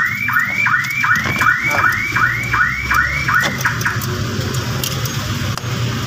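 Car alarm siren giving a fast repeating chirp, each rising and dipping back, about three a second, which stops after roughly three and a half seconds.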